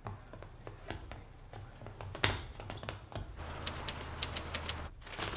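Foley of a manual typewriter being typed on: scattered clicks and one sharp knock about two seconds in, then a quick run of key strikes in the second half.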